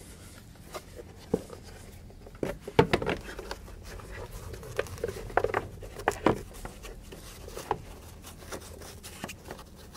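Hard plastic air cleaner housing being handled and worked into a truck's engine bay: irregular light clicks, taps and scrapes of plastic against plastic and nearby parts, with a few sharper knocks.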